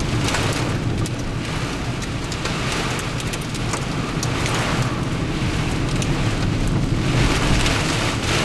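Heavy rain and strong wind gusts beating on a car driving through a severe thunderstorm, with a low rumble of engine and road noise underneath. The rush swells and eases with the gusts, with a few sharp ticks of things striking the car.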